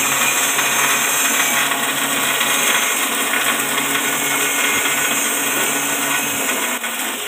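JG 25 multi-purpose chopper-grinder running, its rotor belt-driven by an electric motor, making a steady whirring drone. Its low hum drops away near the end.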